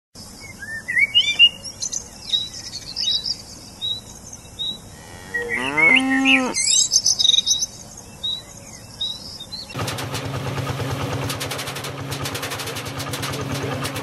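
Birds chirping and a cow mooing once, about six seconds in. About ten seconds in this gives way to a John Deere tractor's diesel engine running steadily with a fast clattering tick.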